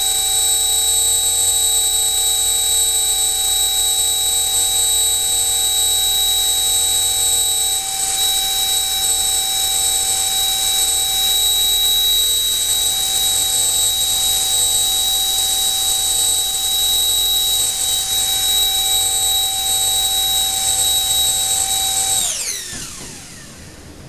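LEDF68-1A35 68 mm electric ducted fan running at a steady high speed on a 14.8 V 4S battery, a loud even high-pitched whine. About 22 seconds in it is cut and spins down, the whine falling in pitch and fading away.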